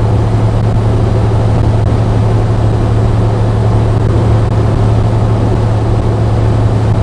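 Truck engine running, a steady low hum heard from inside the cab.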